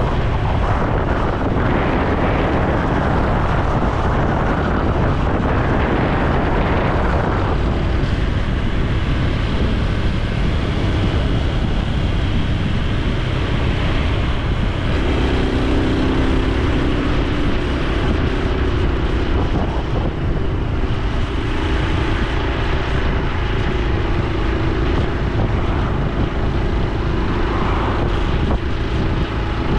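Exhaust and engine of a Honda Super Cub C125's air-cooled single-cylinder motorcycle engine running on the move, with wind rushing over the microphone. The wind rush is heaviest for the first several seconds; after that the engine note comes through steadier and clearer.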